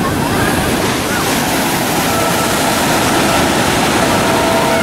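Ocean surf breaking on the beach in a steady wash. About two seconds in, a distant diesel locomotive's air horn starts sounding a held chord of several notes over the waves, as the train nears a grade crossing.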